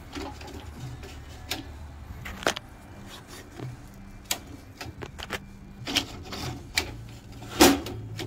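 Irregular metal clicks and clinks of a square steel shaft being slid out of an impact printer's tractor frame and handled, with a louder knock near the end.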